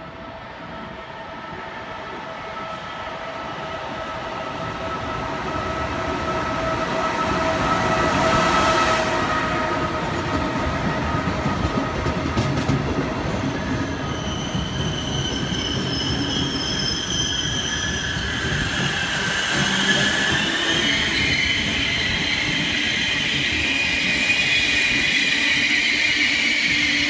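Trenitalia regional passenger train approaching along the platform track and rolling past close by, growing louder over the first eight seconds and then staying steady. A high metallic squeal from wheels and brakes sets in about halfway through as it slows.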